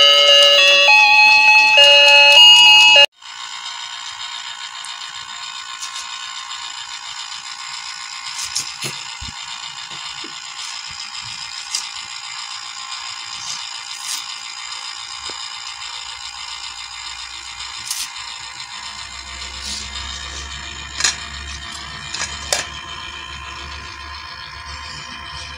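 An electronic chime-like tune of stepping notes, cutting off abruptly about three seconds in, followed by a quieter steady mix of held electronic tones with scattered light clicks.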